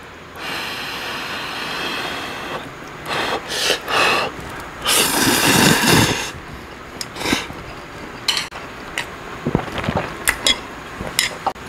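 A man slurping instant ramen noodles in broth from a spoon in long, noisy sucks, the loudest about five to six seconds in. In the second half this gives way to chewing and short clicks of metal chopsticks and spoon.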